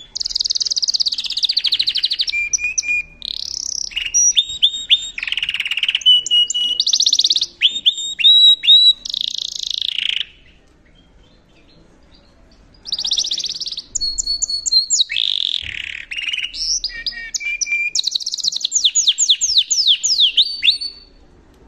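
Yorkshire canary singing two long song phrases of rapid trills, rolls and sweeping notes, with a pause of about two and a half seconds between them; the second phrase ends in a run of quick falling sweeps. It is singing at the start of its conditioning for the breeding season.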